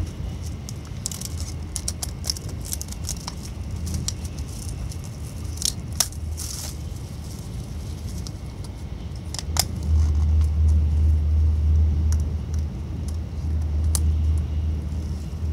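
Running noise inside a Shinkansen passenger car: a steady low rumble that grows louder about ten seconds in, with scattered crackles and clicks close by.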